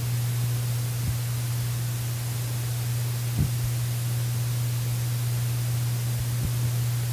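Steady hiss with a strong low hum and no music playing. A soft thump comes about three and a half seconds in, with fainter ones near the start and near the end.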